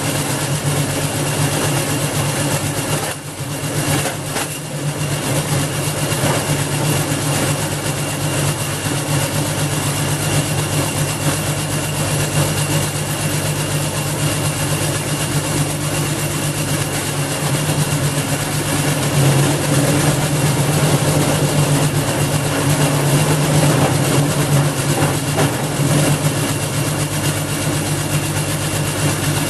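Garden wood chipper's Briggs and Stratton 5.5 HP single-cylinder engine running steadily, dipping briefly about three seconds in and picking up again. It runs again now that its blocked carburettor main jet has been cleared.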